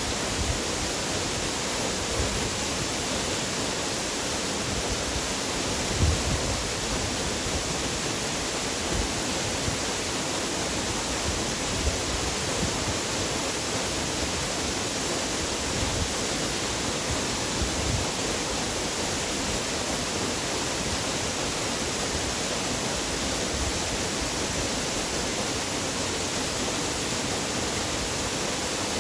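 Waterfall: a steady, even rush of falling water, with a few brief low thumps.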